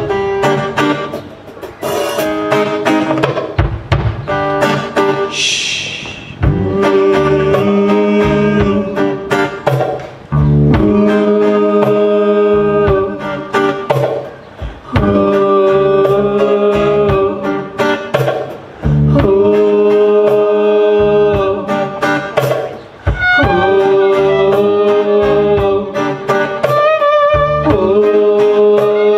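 Live folk-rock band playing amplified, with fiddle, acoustic guitar, bass guitar and drums. It starts sparse, and the full band comes in about six seconds in, with long held melody notes repeating in phrases.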